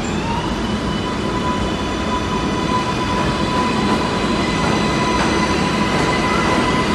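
A Kawasaki R142A subway train pulling out of the station. The propulsion whine, several tones at once, finishes gliding upward just after the start and then holds steady over the rumble of the wheels on the rails, slowly growing louder.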